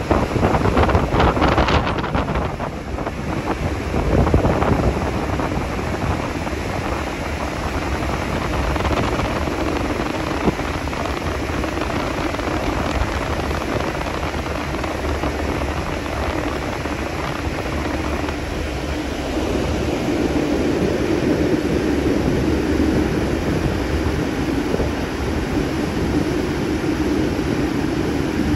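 Wind buffeting the microphone and water rushing along the hull of a car ferry under way, over a steady low drone from the ship. The wind gusts hardest in the first few seconds.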